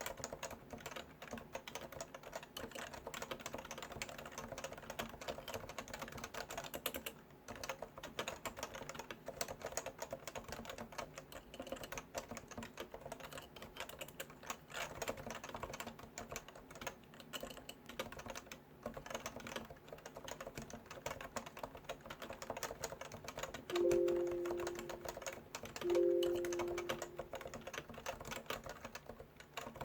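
Typing on a Leopold FC980C Topre electrostatic capacitive keyboard: a steady run of keystrokes with a couple of brief pauses. Near the end, two short pitched tones about two seconds apart sound over the typing, louder than the keys.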